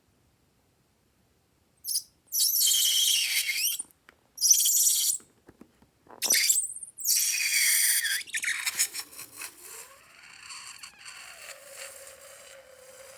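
Three loud bursts of hissing with squeaks, then a fainter wavering squeal that dips and rises again.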